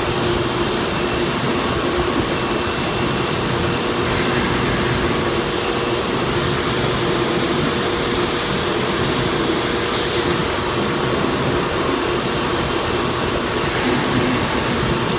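Busellato Jet 260 CNC woodworking machining center running: a loud, steady machine whir with a constant hum, and a few brief sharp noises near 3, 10 and 12 seconds in.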